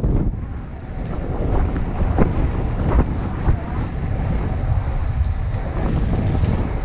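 Wind buffeting the camera microphone as the electric unicycle rides along, a steady low rumble, with a few sharp knocks at the start and about two and three seconds in.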